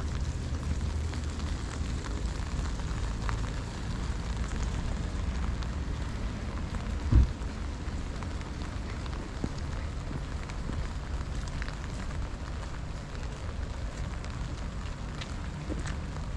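Steady rain hiss with scattered drops ticking, over a low rumble. A single short, loud low thump about seven seconds in.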